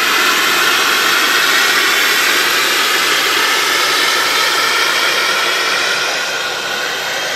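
Jet airliner engine running on the apron: a loud, steady whoosh with a high turbine whine that sinks slightly in pitch.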